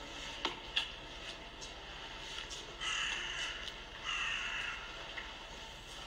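A crow cawing twice, about three and four seconds in, each caw lasting under a second. Two sharp clicks come just before the first second.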